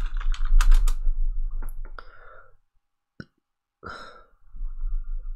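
Computer keyboard typing and clicking, dying away about two seconds in. After a near-silent gap come a single click, a short burst of noise and then a faint steady tone.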